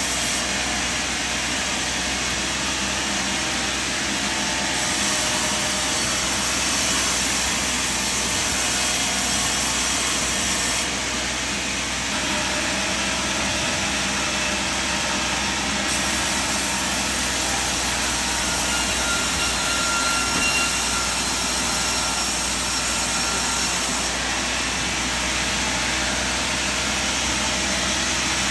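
Sawmill machinery running with a loud, steady mechanical noise, its sound shifting abruptly four times.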